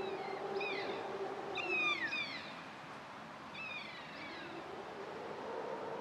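Kea calling: several loud, downward-sliding, cat-like cries, in pairs, the loudest about two seconds in. A low steady hum lies under them; it fades about midway and comes back near the end.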